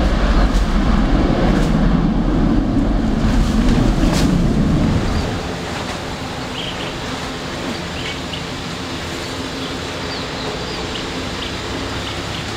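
Deep rumble of a jet airliner's engines at takeoff power, cut off abruptly about five seconds in. A quieter, steady jet engine noise from an airliner at low power on the runway follows.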